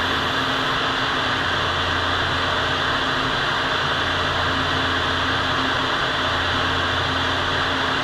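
Paint spray booth's ventilation fans running: a steady rush of air with a low hum underneath.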